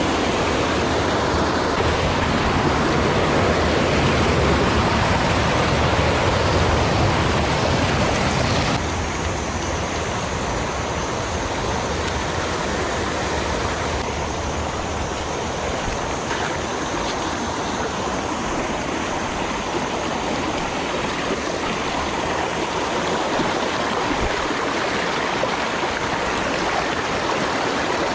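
Water of a small rocky forest stream rushing over a cascade of boulders in a steady rush. About nine seconds in it drops suddenly to a softer rush of shallow water running over stones.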